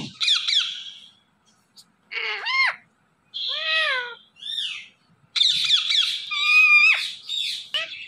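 Indian ringneck parakeet calling: a few short calls that rise and fall in pitch, then a longer run of chattering calls in the second half.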